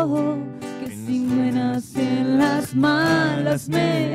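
A voice singing a song, holding notes with vibrato, accompanied by strummed acoustic guitar.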